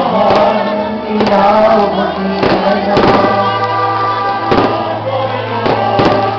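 A sung song with choir, its bass notes held long, with several sharp firework bangs bursting through it.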